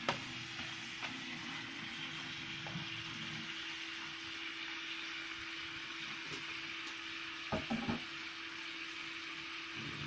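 Chunks of meat sizzling steadily as they fry in a pan over a wood fire. A few quick knocks come about three-quarters of the way through.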